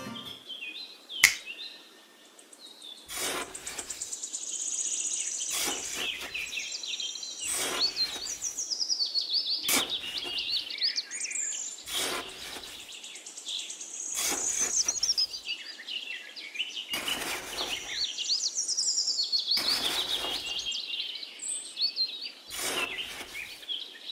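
Small metal trowel scraping and scooping damp sand in short strokes every one to two seconds, with a sharp knock about a second in. Birds chirp and twitter throughout.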